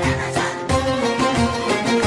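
Background music with a steady beat and plucked or bowed string instruments in a folk style.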